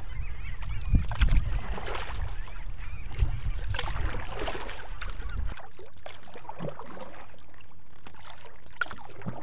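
Canoe paddling with wind buffeting the microphone, and paddle strokes dipping and splashing in the water. About five and a half seconds in, the wind rumble cuts off abruptly, leaving a quieter bed over calm water with a few faint, short sounds.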